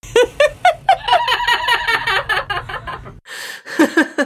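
Three different laughs one after another, cut together abruptly. One is a yellow-naped Amazon parrot's imitation of laughter; the others are human.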